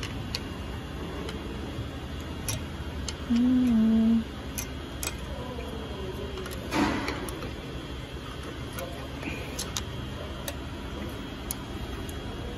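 Scattered light metallic clicks and taps of a flat screwdriver prying and scraping between the rusty pads of a Mercedes S400 front brake caliper, over a steady workshop hum. A short low hum-like tone, the loudest sound, comes about three seconds in, and a brief scrape about seven seconds in.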